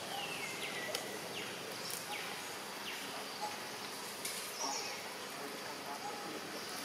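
Outdoor ambience: a steady hiss of insects with several short, high chirps that fall in pitch, clustered in the first three seconds, and a few faint clicks.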